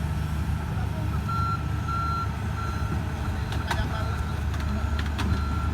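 Heavy-equipment backup alarm beeping in an even rhythm, about one and a half beeps a second, over the steady rumble of a diesel engine. A few sharp metallic clanks come in the middle.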